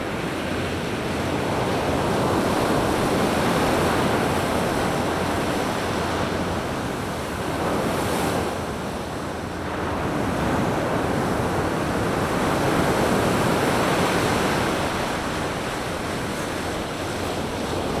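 Surf breaking and washing up onto a sandy beach, a steady rush of water that swells and eases as the waves come in.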